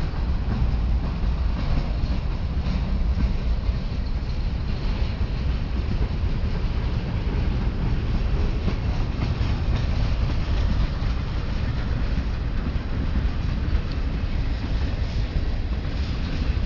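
Ferromex train running by with a steady low rumble from the locomotives and rolling cars. No horn sounds.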